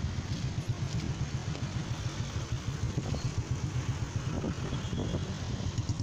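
Low, steady engine rumble of road traffic, with motorcycles passing.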